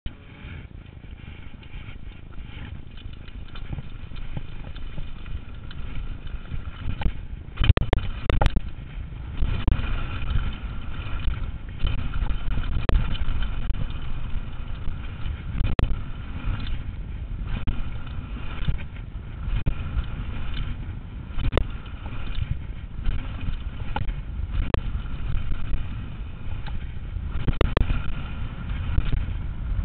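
Mountain bike riding down a dirt trail: wind and tyre rumble building as it gathers speed, broken by sharp knocks and rattles of the bike over bumps and jump landings, the loudest cluster about eight seconds in.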